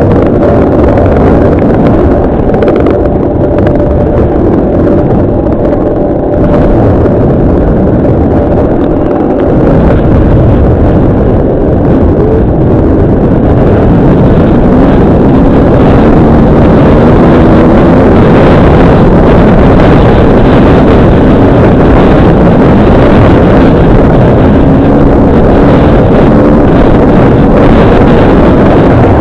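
Dirt bike engine running hard, heard from the bike itself, its pitch rising and falling with the throttle. It is loud and continuous throughout.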